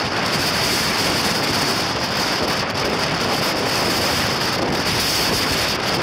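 Blizzard wind of about 70 km/h, gusting past 90 km/h, buffeting the microphone in a steady, loud rush.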